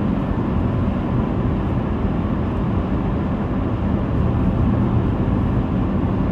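A car driving on the road, with a steady low rumble of road and engine noise.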